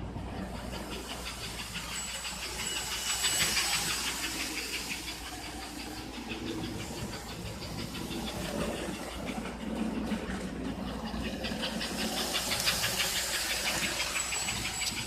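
American Flyer 312 S-gauge model steam locomotive running around the track, a rapid even clatter of wheels and mechanism that grows louder as the train passes close, about three seconds in and again near the end.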